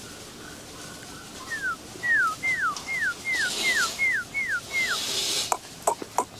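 Bắc Hà puppy whining: a run of eight short, high whines, each falling in pitch, at about three a second. A few sharp clicks follow near the end.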